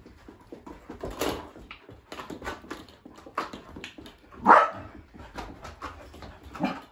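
Excited dogs barking and whimpering as they play over plastic balls, with a few louder barks, the loudest about four and a half seconds in, over a run of light clicks and rattles from the balls and paws.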